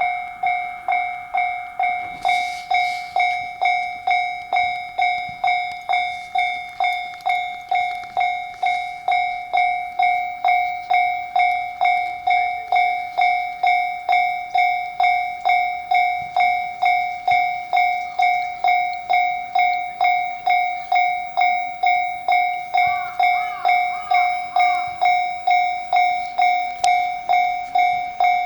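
Japanese railway level-crossing warning bell ringing. A high electronic ding is repeated evenly about twice a second, signalling an approaching train.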